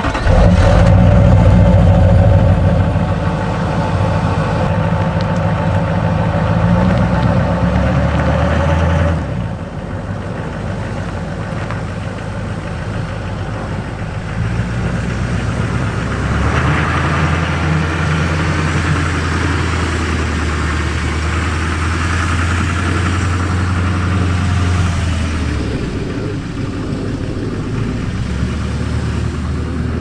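Chevrolet Silverado pickup truck's engine running, then driving off across snow. Its note drops about nine seconds in and rises again around sixteen seconds in as the truck pulls away.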